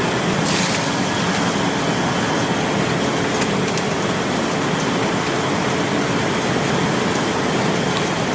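Steady factory noise: a dense, even rush with a faint hum and a few light clicks.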